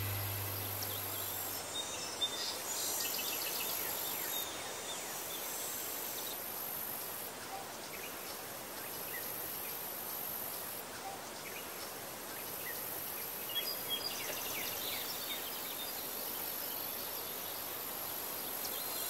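Outdoor ambience of insects with a steady high trill that stops and starts, and scattered short bird chirps. A low note of music fades out in the first two seconds.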